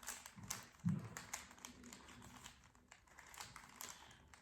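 Rapid small plastic clicks and taps from a Rubik's Cube being handled and turned, with a soft thump about a second in.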